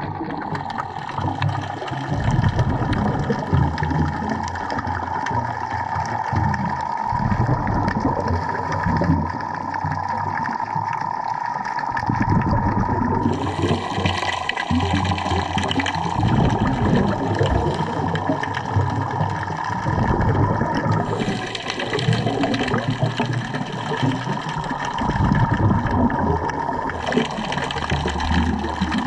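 Underwater ambience heard through a camera in its waterproof housing: a steady muffled wash of water with uneven low rumbling, and a brighter hiss that comes in about halfway through, drops away and returns near the end.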